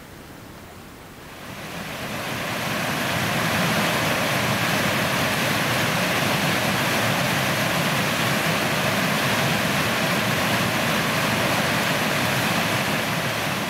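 Rushing water of a small waterfall cascading over rocks into a river. It fades in about a second in, then runs on steadily.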